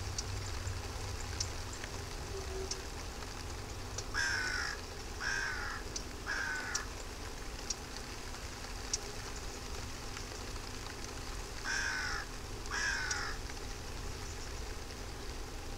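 A bird calling outdoors: three short calls about a second apart, then two more several seconds later, over a steady background hiss.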